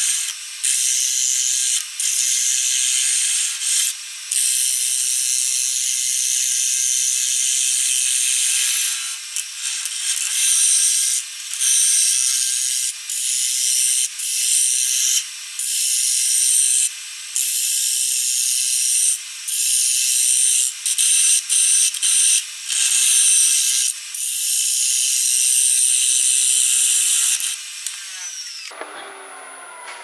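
A wood lathe turning tool cutting across the face of a spinning disc of hard wood: a loud, dry scraping hiss, broken by short breaks every second or two as the tool comes off the wood. Near the end the cutting stops and the lathe runs on with a faint steady whine and a falling tone as it slows.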